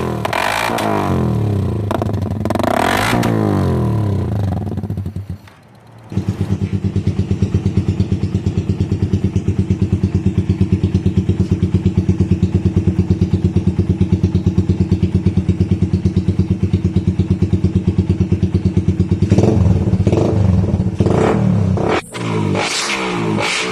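Motorcycle fitted with a Daeng Sai 4-style aftermarket exhaust pipe, revved a few times, dipping briefly about five seconds in. It then idles with an even, pulsing exhaust beat, and is revved again near the end.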